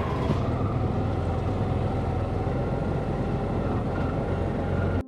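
Auto rickshaw running along the road: a steady engine and road drone, heavy in the low end, that cuts off abruptly at the end.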